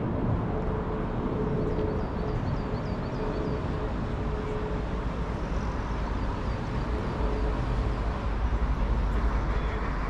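Steady outdoor rumble of vehicle noise, with a few faint high chirps between about one and three seconds in.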